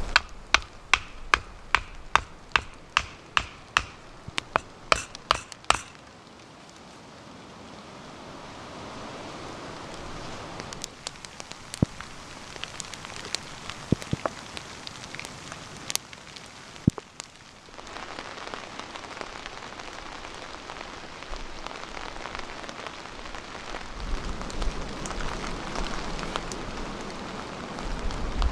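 Wood campfire burning, a steady crackling hiss with scattered sharp pops. In the first six seconds a rapid, even run of loud clicks, about three a second, sits on top.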